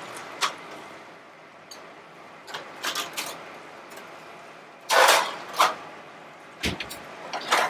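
Imperial commercial gas range oven being loaded: scattered metal clicks, a loud metal clatter of a pan going onto the oven rack about five seconds in, then the oven door shutting with a deep thud, over a steady hiss.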